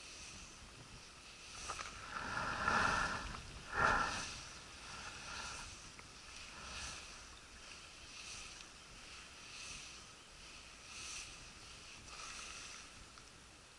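A spinning reel cranked on a retrieve makes a short rasp about every second and a half. Before that, a louder rustle runs from about two to four seconds in.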